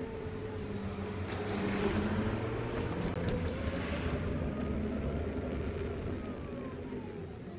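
Onboard sound of a vehicle's engine running at cruising speed over a steady low rumble of road and wind noise. Its pitch rises a little midway and eases off near the end.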